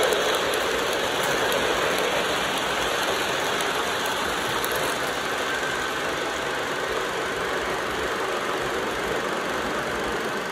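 O gauge model trains running on the layout: a steady rumble of wheels rolling on the track, mixed with the running sound of a diesel locomotive.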